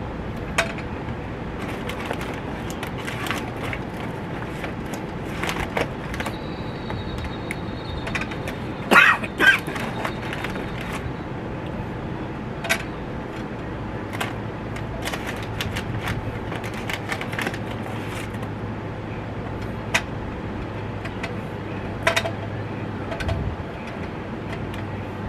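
Charcoal briquettes being picked out of their bag with metal tongs and dropped into a small cast iron tabletop charcoal grill: scattered light clinks and knocks, two louder knocks about nine seconds in. A steady background rumble runs underneath.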